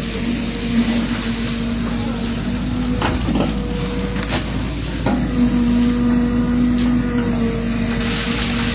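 An engine running steadily with a low hum, over a crackly noise, with a few sharp knocks between about three and five seconds in.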